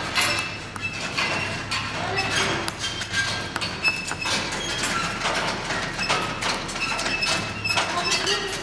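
Horse-drawn wagon with a steel frame rolling across a sand arena: an irregular clatter and clinking of the frame and harness, with the dull thuds of hooves.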